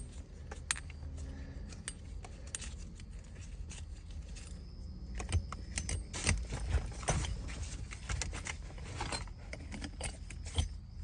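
Irregular clicks, knocks and scrapes of hands working a shift knob on and off a BMW E90's gear lever.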